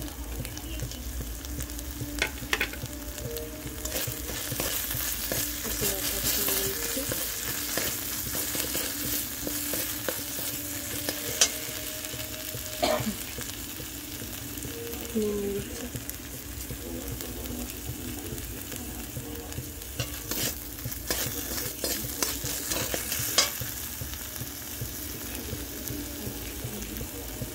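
Masala paste frying in oil in a wide metal kadai, sizzling steadily. A metal spatula stirs and scrapes it against the pan with scattered clicks and scrapes.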